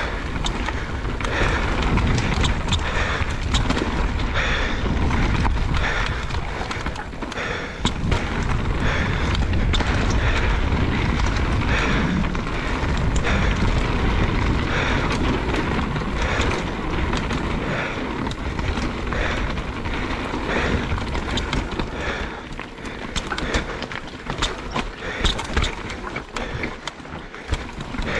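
Mountain bike riding down a dirt trail: tyres rolling over dirt and stones and the bike rattling over bumps, under steady wind rush on the microphone. A few sharp knocks come near the end.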